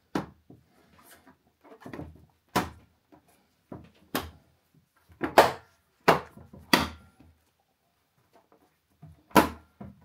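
Clips of an ASUS all-in-one PC's display panel snapping into the chassis as it is pressed down around its edges: a series of about nine sharp clicks at irregular intervals, the screen seating into its frame.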